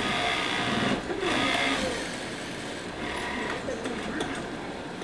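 Industrial sewing machine stitching a garment, running in two spurts of about a second each with a short break between, then going quieter.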